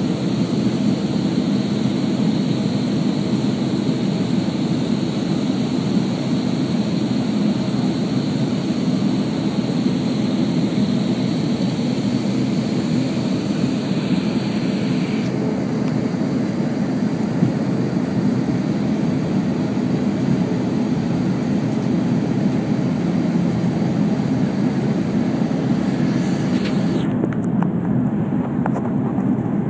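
Airliner cabin noise on the descent to landing: engine and airflow noise heard from inside the cabin, a steady low drone. The higher hiss thins out about halfway through and drops further near the end.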